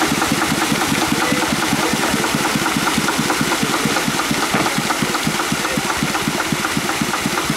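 Homemade tractor's small engine running under load with a fast, even chugging beat as it churns through mud.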